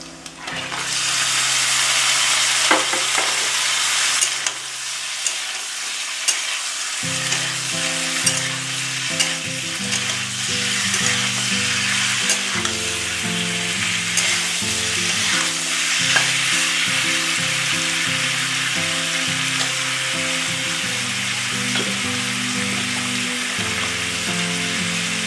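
Parboiled pork pieces hit hot oil and half-fried onions in a kadai, bursting into a steady frying sizzle about a second in. A metal spatula stirs them with sharp clicks and scrapes against the pan.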